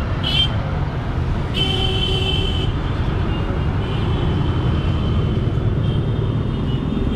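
Street traffic rumbling steadily, with a vehicle horn sounding for about a second, about two seconds in.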